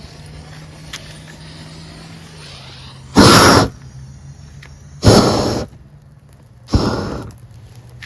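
Bravex propane weed-burner torch blasting three times as its trigger is squeezed: three short, loud rushes of flame, each about half a second long and fading fast, a little under two seconds apart. Between the blasts the small low flame at the nozzle burns quietly.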